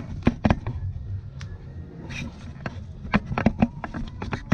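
Irregular sharp clicks and knocks, handling noise from the camera being moved and held close, over a low steady rumble.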